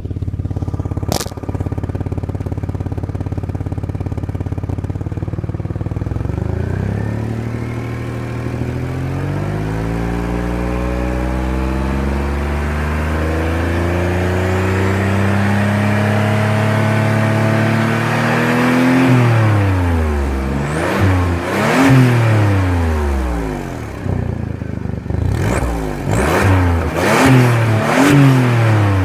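2002 Audi allroad's 2.7-litre twin-turbo V6 idling, then revved slowly up and held, then blipped several times in quick succession near the end. The exhaust has a leak at the driver's-side flex pipe.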